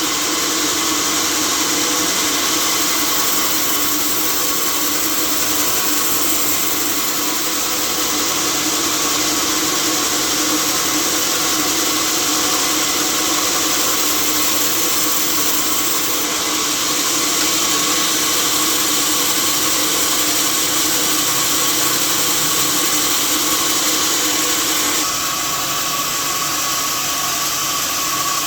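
Sawmill saw running steadily: a loud, even hiss with a steady machine hum and whine, dropping slightly near the end.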